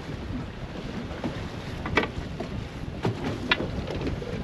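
Motorboat under way: the boat's motor running with wind buffeting the microphone and water rushing past the hull. Three sharp knocks come through, about two seconds in and twice near three and a half seconds.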